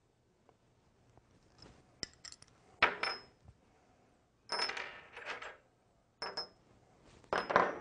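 Small metal parts clinking and rattling against a hard surface in about five short bursts, several with a bright ringing ping. The loudest clatters come about three seconds in and near the end.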